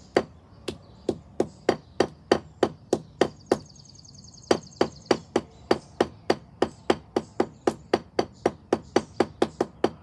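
Hammer striking repeatedly, about three blows a second, on folded paper holding flowers and leaves laid on a concrete slab: flower pounding. The blows stop for about a second near the middle, then carry on at the same pace.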